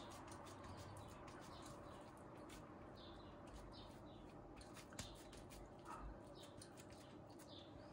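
Near silence: faint soft clicks and handling sounds of minced köfte meat being pressed out flat by hand, with a few faint, short high chirps.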